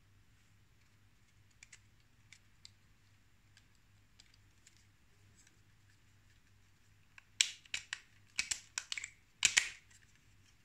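A series of sharp clicks and taps: a few faint ones at first, then a loud, quick cluster of about a dozen near the end.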